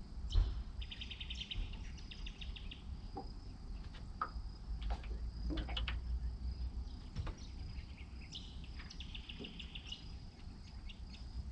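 Riverside ambience: a steady high insect buzz, a bird's rapid chattering trill twice (about a second in and again near the end), and scattered sharp clicks and knocks.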